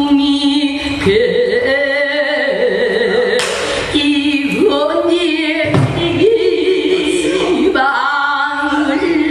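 Female pansori singer singing a sung passage in a full voice, holding long notes that waver in a wide vibrato, the pitch stepping up and down between phrases.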